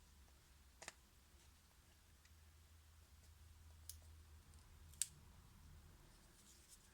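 Near silence broken by three small, sharp clicks about a second in, near four seconds and, loudest, around five seconds: small phone parts and tools being handled during reassembly.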